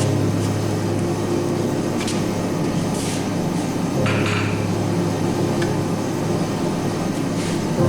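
Background music with a steady low drone, with a few sharp metallic hammer strikes on steel, one about four seconds in ringing briefly.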